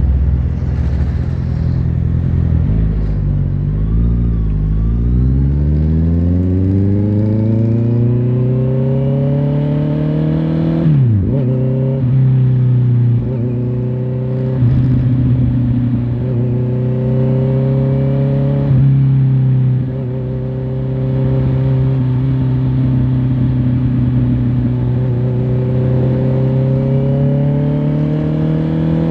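Honda CBR650R's inline-four engine pulling up from low revs, its pitch rising steadily for several seconds. A quick gear change comes about eleven seconds in, then it cruises at steady revs with a few brief throttle changes.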